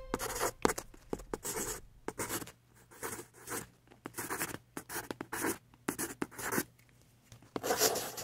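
Pencil scratching on paper in short, irregular drawing strokes, with a longer stroke near the end.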